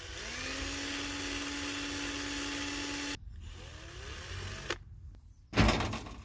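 A small electric motor spins up and runs at a steady hum for about three seconds, then stops abruptly. Near the end there is a short, loud clatter.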